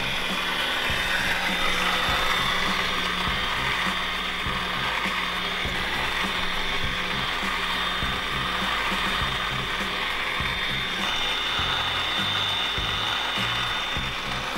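Mizuho Industry PVQ-1D tabletop vacuum emulsifying mixer running with its homomixer at about 10,200 rpm. It makes a steady mechanical rattle with a high whine over it.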